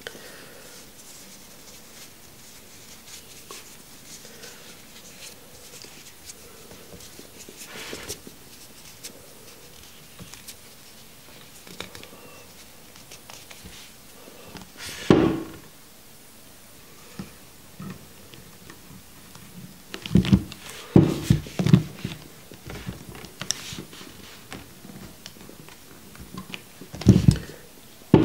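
Handling of small vape parts at a table: faint clicks and rustles, with short thumps about halfway through, a cluster of them around twenty seconds in, and another just before the end.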